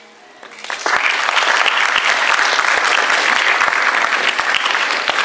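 Audience applauding, rising quickly to a loud, dense clapping under a second in and holding steady.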